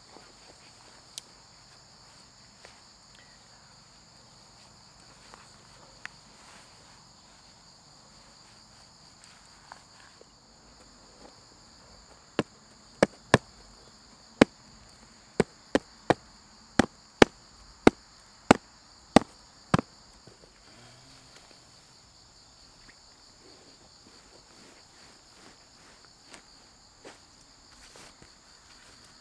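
Insects chirring in a steady high chorus. About twelve seconds in, a run of about a dozen sharp knocks or clicks comes roughly every half second for some seven seconds, louder than the insects.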